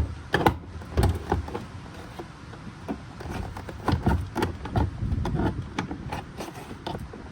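Plastic trim pry tool working behind a car's interior door panel: irregular clicks, knocks and rattles of the plastic panel and its retaining clips being levered loose.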